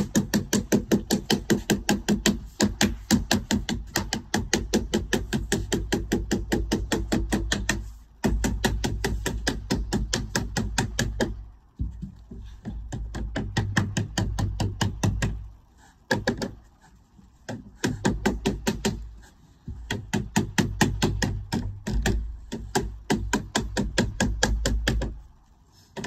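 Rapid hand hammering on a job, about six strikes a second, in runs of a few seconds broken by short pauses.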